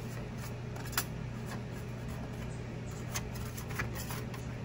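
A few light clicks and taps of a metal spatula against a metal baking pan as pieces of baked biscotti slab are lifted out, the sharpest about a second in and a cluster near the end, over a steady low hum.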